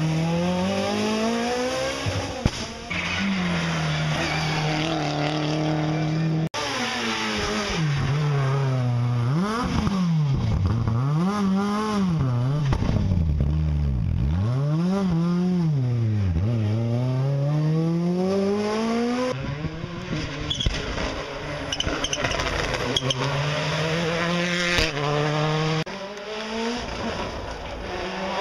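Rally car engines at full throttle, one car after another. The revs climb steeply, drop sharply on the lift-off and downshifts for the hairpin, then climb again as each car pulls away. The sound breaks off abruptly about six and a half seconds in, where the shot changes.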